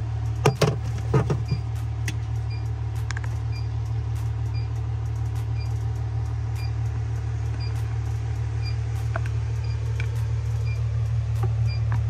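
Sub-Zero 424G refrigeration unit running with a steady low hum, its evaporator fan going, picked up from inside the cabinet. A few sharp handling clicks sound in the first second or so.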